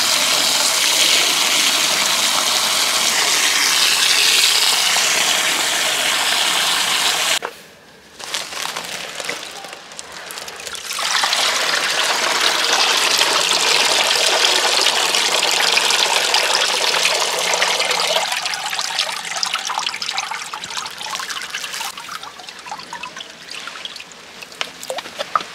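Garden hose spray nozzle jetting water into a plastic basin around a woven sack of rice, cut off suddenly about seven seconds in. After a short lull, water pours out of the lifted soaked sack back into the basin, thinning to a trickle toward the end.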